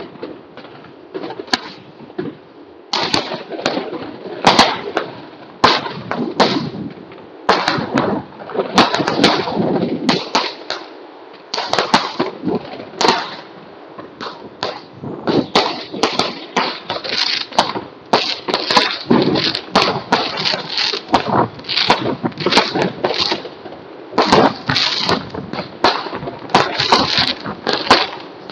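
Many fireworks going off at once: a dense, irregular run of sharp bangs and crackling pops, several a second.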